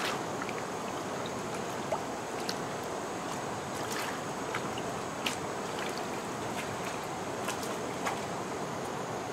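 Hands scooping and splashing in shallow muddy water: scattered small splashes and squelches over a steady rush of water and a steady high-pitched hiss.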